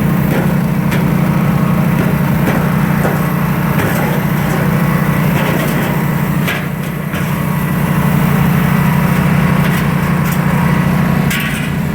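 Portable generator's engine running steadily, with scattered clicks and knocks over it. The level dips briefly about two-thirds of the way through and again near the end.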